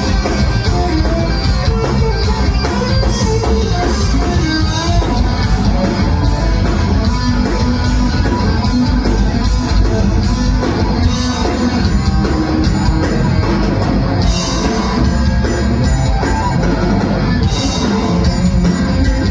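Punk rock band playing live: loud distorted guitars, bass and fast drums with crashing cymbals, with some shouted singing, heard through the room.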